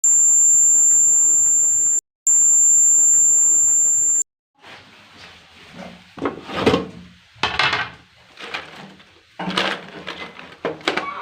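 Electronic doorbell buzzer sounding two long, steady, very high-pitched beeps of about two seconds each, cut off sharply. Quieter, uneven sounds follow in the second half.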